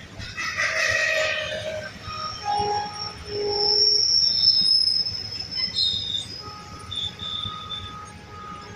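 Freight train's covered wagons rolling past with a low rumble, their wheels squealing in steady high tones that start and stop at different pitches, one after another. The highest squeal is the loudest, around the middle.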